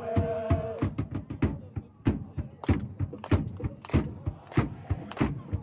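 Football supporters chanting a player's chant, with a held sung note in the first second, then sharp rhythmic claps or beats at about two a second under the voices.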